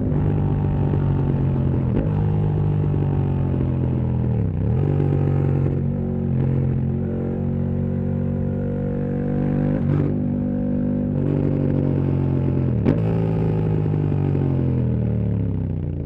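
KTM 1290 Super Duke R V-twin engine through a full titanium Akrapovič exhaust, running at low to moderate revs under light throttle. Its pitch rises and falls gently, with a brief dip and pick-up about four and a half seconds in, a few sharp clicks, and one louder knock about thirteen seconds in. It drops in pitch and quietens near the end as the bike slows.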